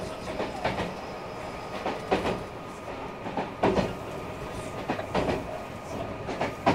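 Meitetsu 2300 series electric train running at speed, heard from inside the car: a steady rumble with sharp wheel clacks over rail joints every second and a half or so.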